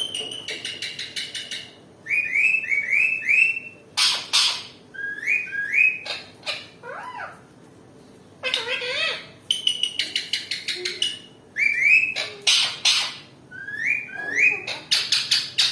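Ringneck parakeet calling angrily in bursts: quick rising squawks and runs of chattering notes, broken by a few harsh, loud screeches.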